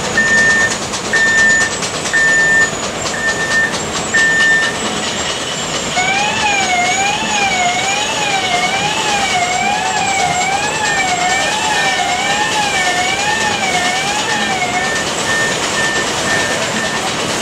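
Electronic warning alarms in an underground mine, over steady machinery noise. First a beeper sounds about once a second. Then, about six seconds in, a warbling siren starts, rising and falling over and over, and stops about fifteen seconds in. Quicker short beeps join near the middle and run almost to the end.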